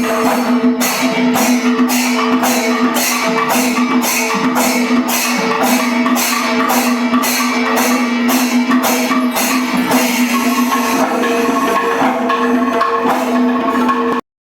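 Background music with a steady beat of jingling, tambourine-like percussion, about two and a half strokes a second, over held tones. It cuts off suddenly near the end.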